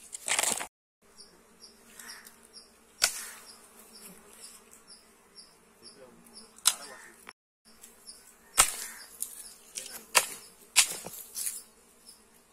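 Honeybees massed on their exposed comb, buzzing as a steady low hum, with several sharp knocks scattered through it.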